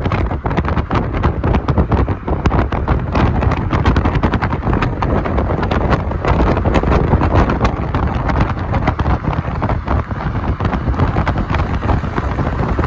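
Wind buffeting the phone's microphone at the car's side window at highway speed, a steady low rumble of road and engine noise under dense, irregular crackling gusts.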